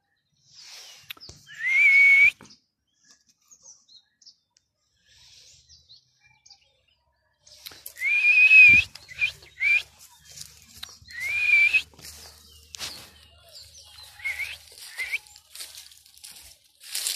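A person whistling a series of high whistles, each sliding up and then holding a steady note, some held about half a second and some short. Rustling and crunching in dry leaves comes in during the second half.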